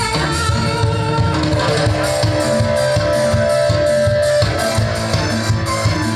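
Music with guitar over a drum kit keeping a steady beat, with a long held note through the middle.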